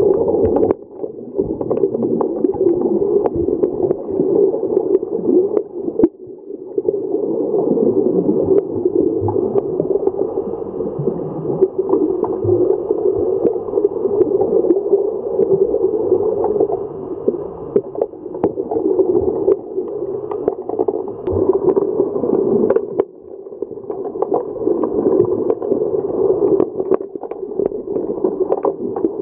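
Muffled underwater pool noise picked up by a camera below the surface during an underwater hockey game: a steady churning of water and bubbles from the finned players, with frequent sharp clicks throughout and a brief drop in loudness near the start, after about six seconds and near the end.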